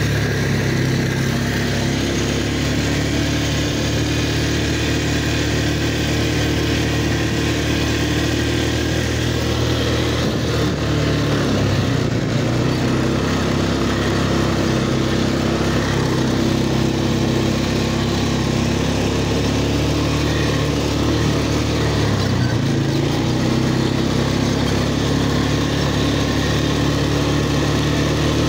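Four-wheeler (ATV) engine running steadily under way. Its note shifts a little twice, around eleven seconds in and again around twenty-two seconds in.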